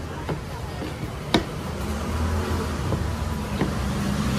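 A wooden rolling pin rolling and knocking on a dough board: a few sharp knocks, the loudest about a second in. From about halfway a low, steady engine hum comes in and grows louder.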